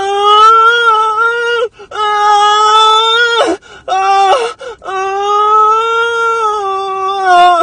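A human voice wailing in long, steady-pitched cries. There are three drawn-out wails, the last the longest, with a shorter wavering cry between the second and third.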